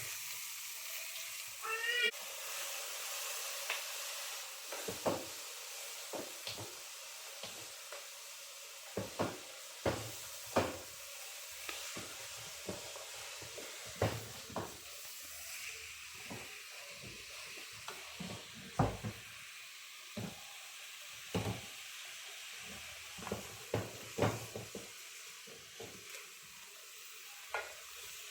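Chopped sukuma wiki (kale) sizzling steadily in oil in a cooking pot, with a spoon knocking and scraping against the pot every second or two as it is stirred. A short rising squeak comes about two seconds in.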